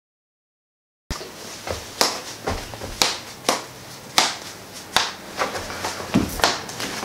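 Silence for about a second, then a toy pickaxe repeatedly whacking a person lying on a wooden floor: a string of sharp smacks, about two a second.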